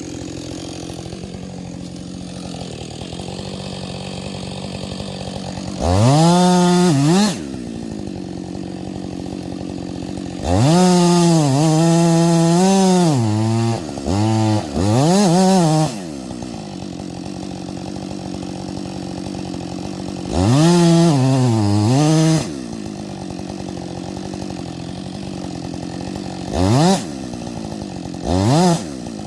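Two-stroke chainsaw idling, revved to full throttle in several bursts, three of them long and two short blips near the end. In the long bursts the engine note sags and recovers as the chain bites into the fir's trunk.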